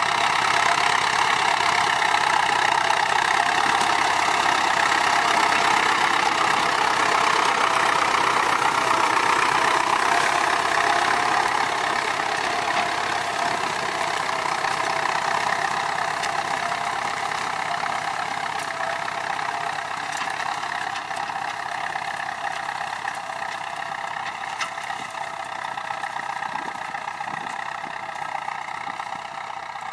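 Ford 6610 tractor's four-cylinder diesel engine running steadily while ploughing a paddy field. It is loudest over the first dozen seconds, then grows slowly fainter.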